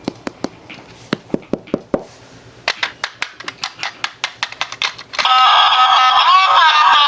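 Small, sharp clicks and taps, first spaced out and then at about five a second, as a toy is handled. About five seconds in, a loud high-pitched tune starts.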